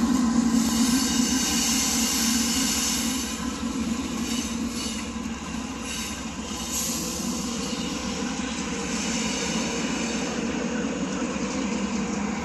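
CSX freight train's cars rolling through a grade crossing, a steady rumble of steel wheels on rail that eases off a little about four seconds in.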